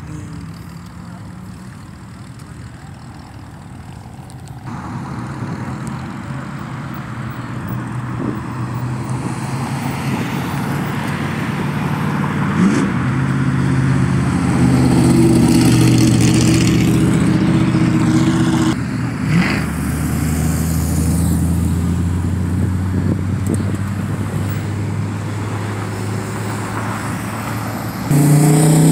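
Cars and pickups driving past on a multi-lane street, with engine and tyre noise. It swells to a loud pass about halfway through, then settles into a deeper engine drone. Another loud engine comes in near the end.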